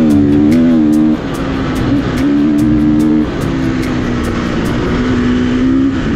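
KTM EXC-F 350 single-cylinder four-stroke dirt bike engine running under way through an FMF exhaust. Its pitch drops and rises again a few times as the throttle is eased and reopened: about a second in, around the middle and near the end.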